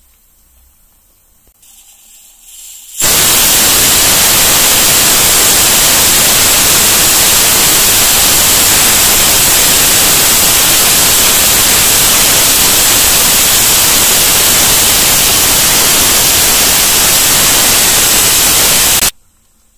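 Pigeon pressure cooker whistling: steam venting from under the weight valve in a loud, steady hiss with a faint high tone in it. It starts after a brief rising hiss about three seconds in and cuts off suddenly near the end. It is the sign that the cooker has reached full pressure.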